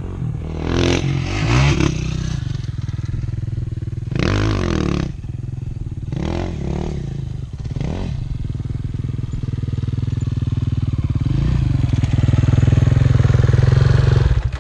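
Dune buggy engine running, with several brief revs that rise and fall in pitch. It grows louder over the last few seconds, then cuts off suddenly.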